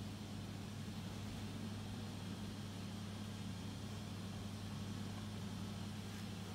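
A steady low hum over faint hiss, unchanging throughout, with no distinct events.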